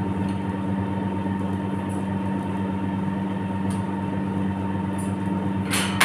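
Steady machine hum, with a thin steady tone above it and a few faint clicks. A voice cuts in near the end.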